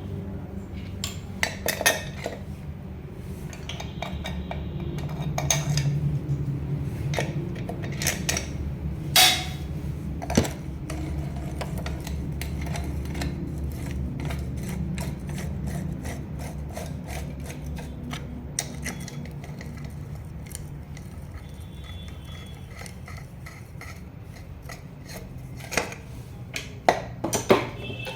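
Metal tools and parts clinking, tapping and scraping while a motorcycle engine cover is put back on, with scattered sharp clicks over a steady low hum.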